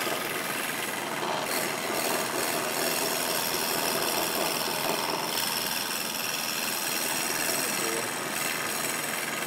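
Wood lathe running while a hand-held turning tool cuts a spinning wooden blank: a steady scraping, rasping noise with a thin high whine over it.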